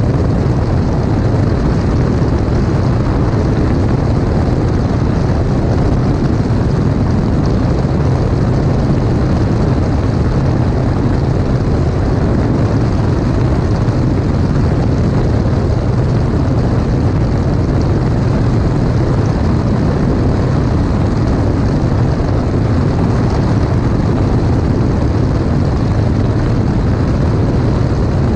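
Light aircraft's propeller engine droning steadily in flight, mixed with rushing airflow, during a gentle descent toward landing.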